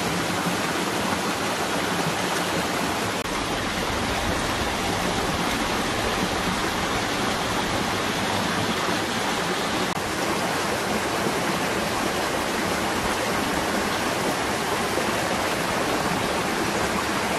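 Steady rush of running water from a stream or small waterfall.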